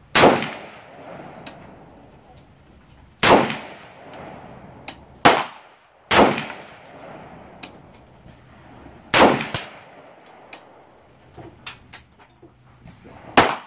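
Five single shots from an AR-15 rifle, roughly three to four seconds apart, each a sharp crack with a ringing tail. A shorter, sharper crack falls between the second and third shots, and lighter clicks and clinks come in the gaps.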